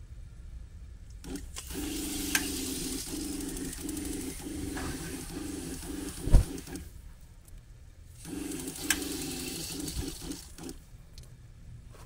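Gasland portable tankless propane water heater trying to light: a rapid ticking buzz with a hiss in two runs, about five seconds and then two and a half, with a sharp thump about six seconds in. The heater is faulty: when it ignites it seems to blow itself out.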